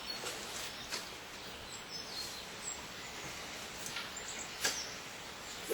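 Outdoor background noise with faint, short bird chirps, and a couple of soft knocks, one about a second in and one near the end.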